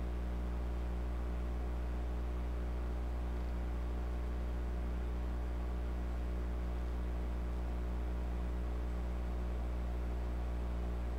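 Steady low electrical hum with a stack of overtones and a faint hiss, unchanging throughout.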